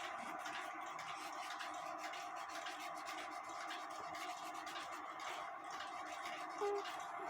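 Fingers rubbing the new bellows paper down onto the glued wooden boards of a cuckoo clock bellows: a faint, steady scratchy rubbing over a low background hum. A brief short tone sounds near the end.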